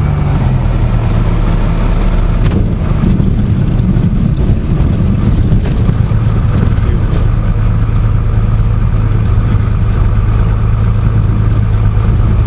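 Cessna 172's piston engine and propeller running inside the cockpit, a loud steady drone whose pitch drops slightly about half a second in.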